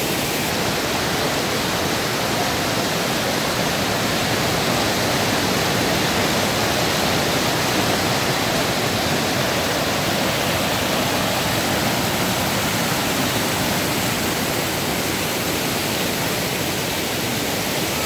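Steady rushing of a whitewater mountain creek and waterfall cascading over boulders.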